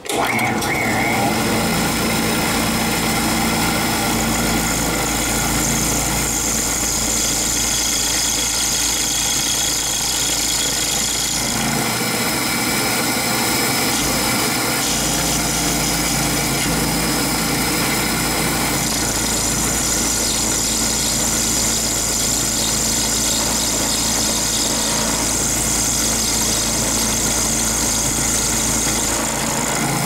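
Milling machine switched on and running, its end mill cutting a groove into a solid brass padlock body. It makes a steady machine hum with heavy vibration. A high-pitched cutting whine grows stronger from about 5 to 11 seconds in and again over the last ten seconds.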